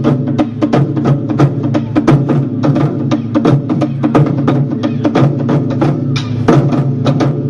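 Taiko drums played together with capoeira percussion: a fast, even run of sharp strikes, about five a second, over a steady drumming beat.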